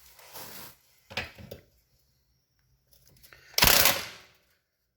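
Hand tools working on the ATV's rear-axle bolts: a few light metallic clicks and clinks, then a loud, short rasping burst about three and a half seconds in, as the bolts are loosened to slacken the axle carrier and take up a loose drive chain.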